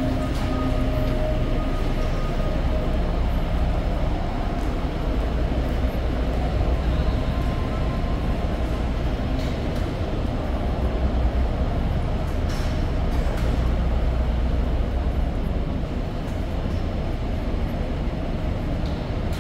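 Steady low rumble of a moving vehicle, easing slightly near the end. The tail of a piece of music fades out in the first second.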